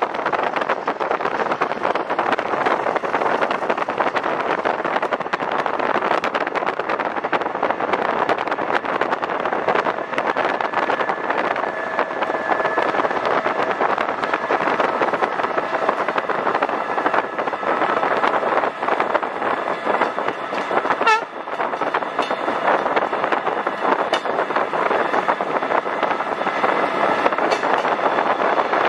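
Steady rushing noise of an Esslinger diesel railcar running at speed, heard from a vehicle pacing it, with the passing wind and travel noise mixed in. There are faint steady tones through the middle and a single sharp knock about two-thirds of the way through.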